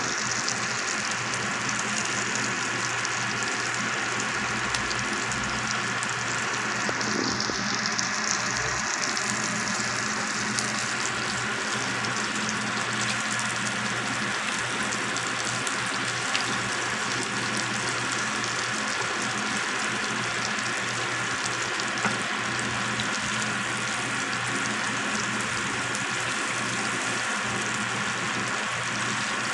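Salmon steaks sizzling steadily in melted butter in a non-stick frying pan, with a few light taps as a wooden spatula moves the fish.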